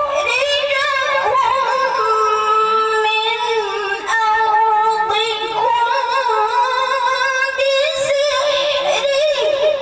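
A woman's melodic Qur'an recitation sung into a microphone, drawing out long held notes with wavering ornaments.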